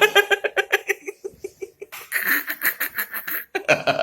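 Stifled giggling in quick, rapid pulses, in two spells with a short lull about a second in.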